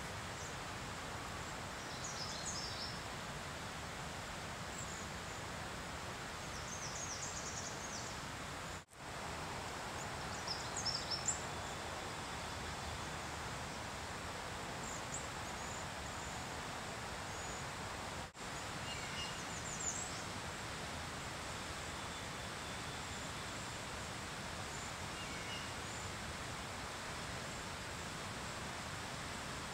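Steady outdoor background noise with short, high-pitched bird calls scattered every few seconds. The sound drops out briefly twice.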